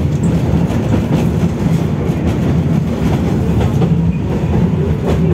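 Tatra T3E tram running along the track: a steady low rumble of wheels and running gear, with faint rattles and clicks.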